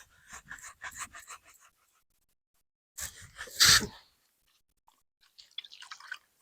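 A damp sponge rubbed in quick short strokes over freshly repaired cracks in a rendered wall, then a loud breath about three seconds in, then more rubbing near the end.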